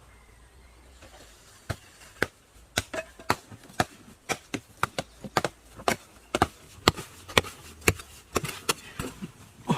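A quick series of sharp chopping strikes, starting singly and settling into a steady rhythm of about two to three blows a second.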